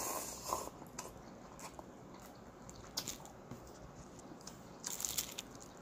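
A person eating instant cup noodles: a slurp of noodles at the start, then quiet chewing with scattered small clicks. A brief cluster of sharp crackles comes about five seconds in.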